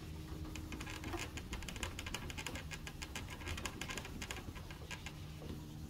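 1500-grit wet sandpaper rubbed by hand over the fresh clear coat of a painted Harley-Davidson fuel tank, making a fast, irregular, scratchy patter of short strokes as it cuts down the orange peel.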